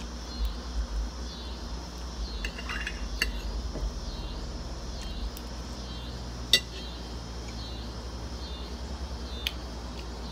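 Metal fork clinking and scraping on a ceramic dinner plate as spaghetti is eaten from it, with a few sharp clinks, the loudest about six and a half seconds in.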